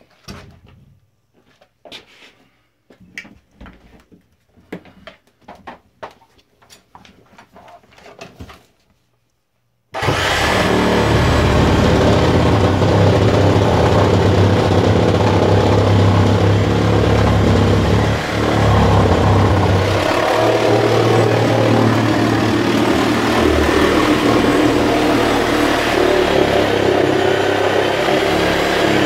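Scattered knocks and scrapes of a heavy old wooden door being shifted and handled. About ten seconds in, a loud steady mechanical drone with a low hum starts suddenly and runs on.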